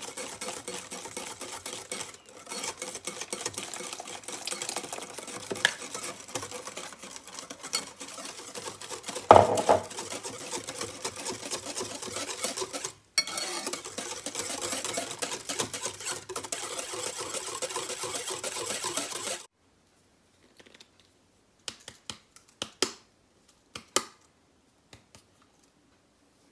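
Hand stirring or whisking in a mixing bowl: a utensil clicks and scrapes rapidly and steadily against the bowl, with one louder knock about nine seconds in. The mixing stops abruptly after about nineteen seconds, leaving a few scattered clinks.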